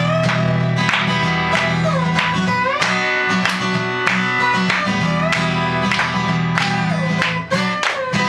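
Two acoustic guitars playing an instrumental passage: one played flat on the lap with a slide, its notes gliding up and down, over the other's steady strumming.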